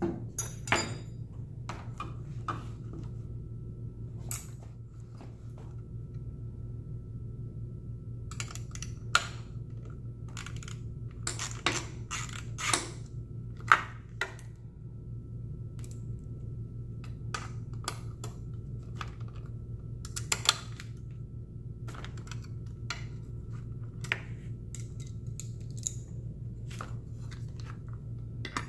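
Irregular light clicks and metal clinks of hand tools, a ratchet and a screwdriver, taking screws out of a motorcycle's plastic tail section, over a steady low hum.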